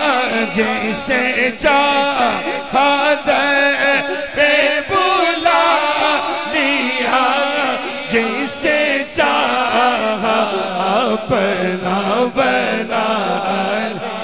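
Male naat reciters singing an Islamic devotional poem unaccompanied into microphones, in long wavering notes.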